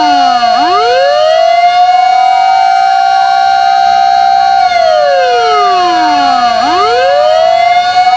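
Fire engine siren, loud, holding a steady high wail and then sliding down in pitch and swooping quickly back up. The swoop comes just after the start, and again with a slide down about five seconds in and a swoop back up near seven seconds.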